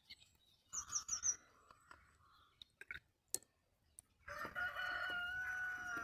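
A rooster crowing: one long held call starting about four seconds in. A few quick, high bird chirps come about a second in.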